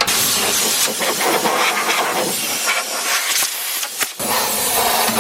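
Compressed air blowing caked dust out of a sander's motor compartment: a loud steady hiss that starts suddenly, breaks off briefly about four seconds in, then resumes.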